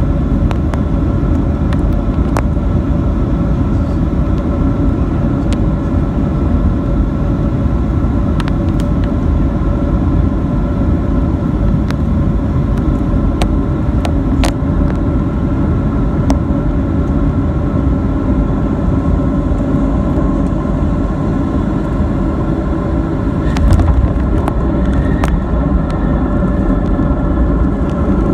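Boeing 737 cabin noise on final approach: a steady jet-engine and airflow roar with a few steady engine tones. About 24 seconds in, a brief low surge and jolt as the main wheels touch down on the runway.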